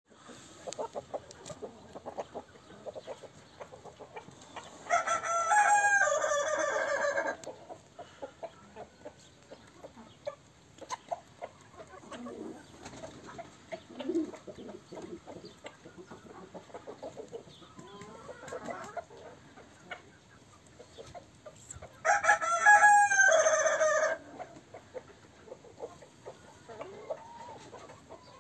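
A rooster crows twice, each crow lasting about two and a half seconds with a stepped rise and fall in pitch, the crows some seventeen seconds apart. Between them, soft, scattered clucking from the foraging flock.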